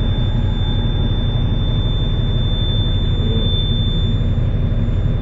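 Semi-truck diesel engine idling steadily in the cab, just after a start, with the low-air-pressure warning buzzer sounding as one steady high tone. The brake system's air pressure is still building, and the buzzer cuts out by itself once there is enough air.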